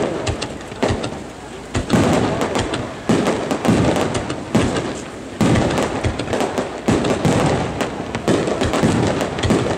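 Aerial firework shells bursting in quick succession, heavy bangs about every second with many sharp crackling pops between them.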